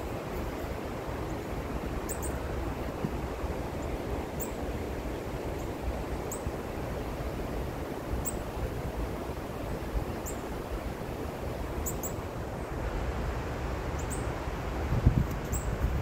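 Black-capped chickadees give short, thin, high call notes every second or two over a steady low rushing noise. A few low thumps come near the end.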